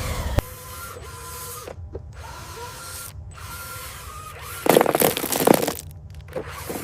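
Small electric motors and gearing of RC models whining steadily, with a loud rattling, grinding burst about two-thirds of the way through.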